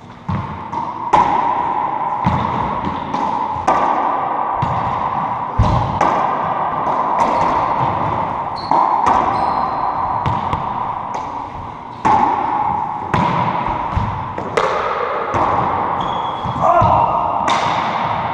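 Racquetball rally: the hollow rubber ball smacked by racquets and slapping off the walls and hardwood floor in quick succession, each hit ringing in the enclosed court. A couple of short shoe squeaks on the wood floor are heard.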